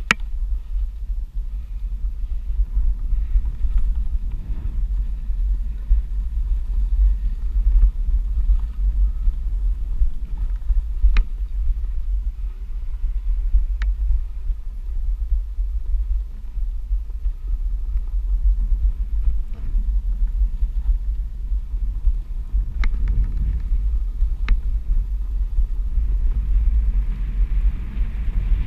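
Steady low rumble of wind buffeting the microphone and a OneWheel XR+ tyre rolling over a packed dirt and gravel trail, with four sharp clicks scattered through it.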